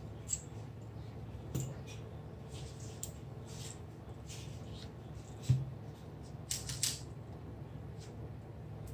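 Scattered light clicks and taps of small tools and parts being handled while a Nikon DSLR is taken apart, over a steady low hum. The loudest is a single knock about five and a half seconds in, followed by a quick run of clicks a second later.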